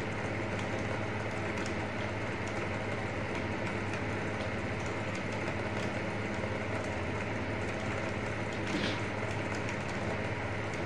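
Steady low hum with a constant hiss: background room noise, with no distinct event standing out.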